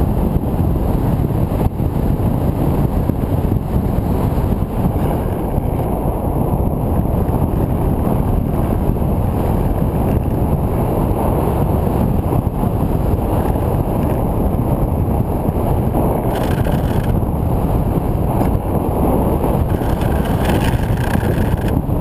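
Wind rushing over the microphone of a camera on board an RC glider that is gliding without power, its brushless motor burned out. Near the end, a higher hiss joins the rush as the glider comes down onto grass.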